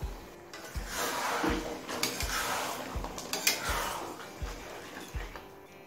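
Hot water hitting a pan of fried chicken and onions and sizzling, with a spatula clinking against the pan as it is stirred in, most of it from about a second in to about four seconds. Under it, background music with a steady beat.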